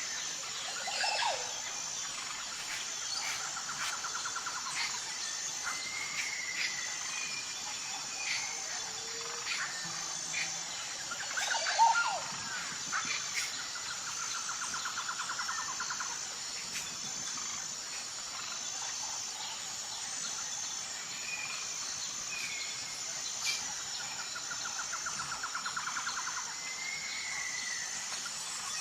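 Wild birds calling and singing: short whistled notes, and a rapid trill about two seconds long that comes three times. Under them runs a steady, high-pitched insect chirping in an even pulse.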